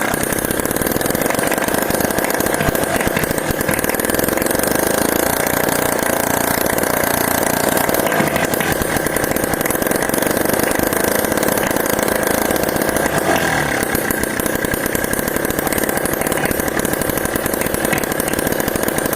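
Small homemade two-stroke engine built from a used refrigerator compressor, running steadily with a rapid, chainsaw-like firing.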